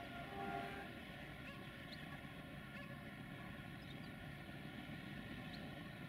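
Faint, steady running sound of two distant trains approaching, an electric locomotive and a diesel railcar, with a few faint bird chirps.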